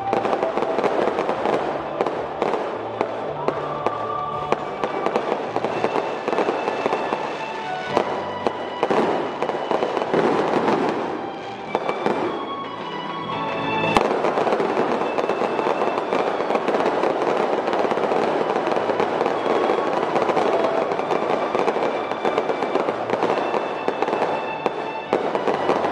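Fireworks display: aerial shells bursting one after another with dense crackling, one sharp bang standing out about fourteen seconds in. Music plays underneath.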